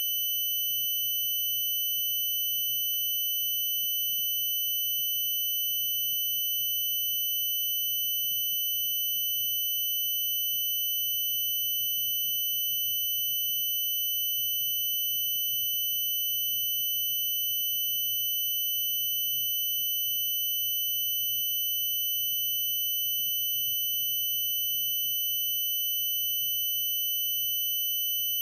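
A steady, unbroken high-pitched tone that holds one pitch without pulsing, over a faint low background noise.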